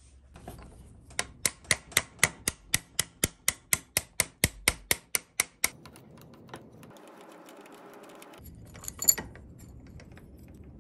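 Metal clutch parts and hand tools on a 66/80cc motorized-bike engine being worked during removal of the clutch's flower nut: a quick run of about twenty regular clicks, about five a second, then a brief faint rubbing and one light metallic clink about nine seconds in.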